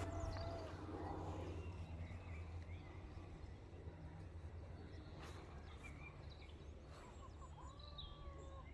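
Outdoor ambience: a steady low rumble of wind on the microphone, with a few faint high calls about a second in and again near the end.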